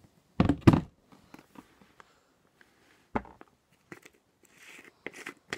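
Handling noises as slime supplies are packed into a storage tub: two heavy knocks about half a second in, another knock about three seconds in, then scattered clicks and brief rustling.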